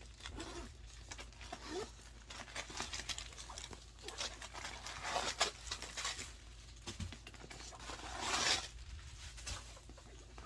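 Rustling and crinkling handling noises as a new backpack and its packaging are moved about and its pockets opened, with a louder rustle about eight seconds in.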